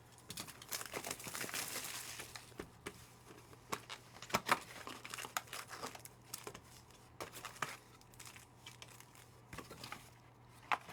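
Crinkling of plastic or foil card packaging and handling of trading cards. A dense rustle over the first couple of seconds gives way to scattered light taps and clicks.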